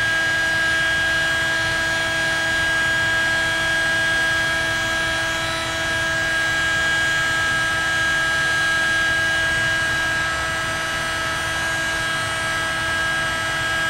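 Electric heat gun running steadily, its fan blowing hot air with an even hum and several held tones. It is heating a circuit board to melt the solder so the components can be scraped off.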